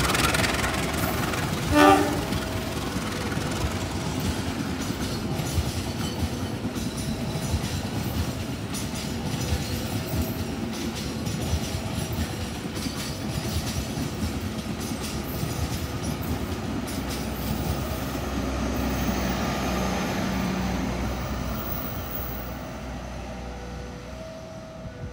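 Special crane train running past on the rails, with a short horn blast about two seconds in, then wheels clattering over the rail joints and fading near the end.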